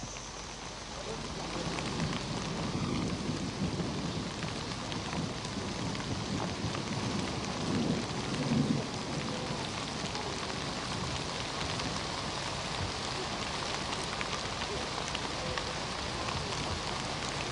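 Heavy rain pouring steadily, with low thunder rumbling twice, loudest about eight seconds in.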